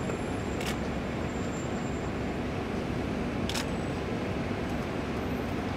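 Steady street traffic noise, with two sharp camera shutter clicks about three seconds apart.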